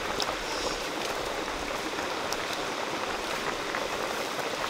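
Steady rush of a stream together with a wok of fish soup at a hard boil over a wood fire, with a couple of faint pops.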